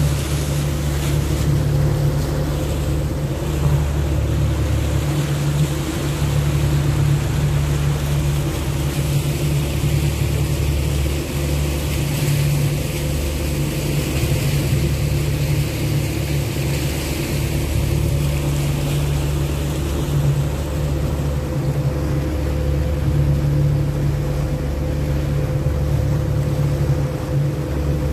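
Small motorboat's engine running steadily under way, a constant low drone with the rush of wind and water over it.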